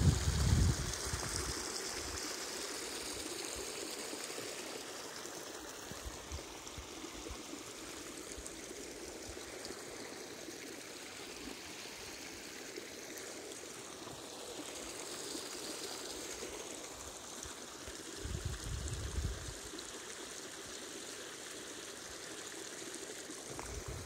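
Steady rushing of a small mountain stream, with brief low rumbles of wind on the microphone near the start and again about 18 seconds in.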